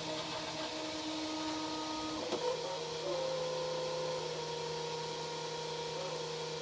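Stepper motors of an Emblaser 4-watt blue-diode laser engraver whining as the laser head travels over the gantry on its marking pass, the pitch stepping up and down as it changes speed, over a steady fan hum.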